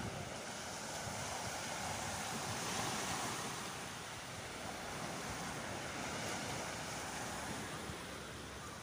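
Small waves breaking and washing up a sandy beach, with wind rumbling on the microphone. The surf swells to its loudest about three seconds in, then eases.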